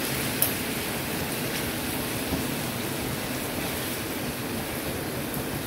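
Chicken, potatoes and vegetables sizzling on a hot tawa, a steady hiss.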